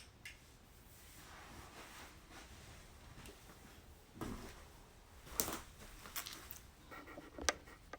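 Faint handling noises: soft rustles and a few light clicks and knocks, the sharpest a little after halfway and near the end.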